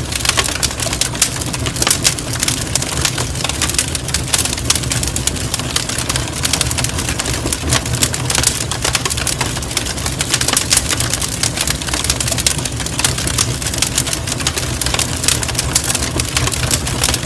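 Campfire burning, wood crackling and snapping: dense irregular sharp pops over a steady low rumble.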